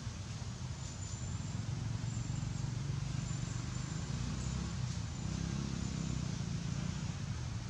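Outdoor ambience: a steady low rumble, with faint high insect chirps now and then.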